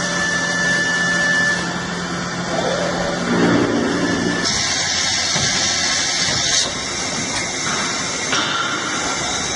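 Large industrial milling machine running, a steady mechanical noise with a few held tones that gives way partway through to a harsh hiss of cutting, changing abruptly a few times.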